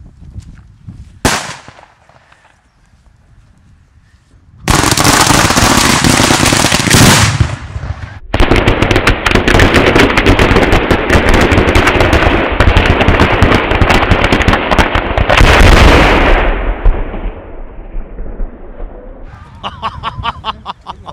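Long chain of firecrackers going off: one sharp bang about a second in, then from about five seconds in a dense, continuous crackle of rapid bangs lasting about twelve seconds, broken briefly once, before it thins out and dies away.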